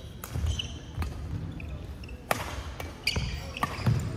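Badminton rally: a series of sharp racket-on-shuttlecock hits, coming closer together about two seconds in, with players' shoes squeaking briefly on the court floor and low footfall thuds.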